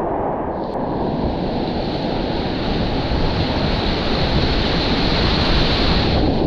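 Whitewater river rapid rushing around a kayak: a steady, loud wash of moving water, with a brighter hiss joining in about a second in and dropping away near the end as the boat runs through the white water.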